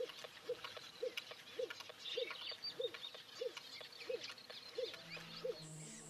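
Crested pigeon cooing in display: a series of about ten short, soft hoots, each rising and falling in pitch, a little over half a second apart. Faint high chirps of other birds sound behind.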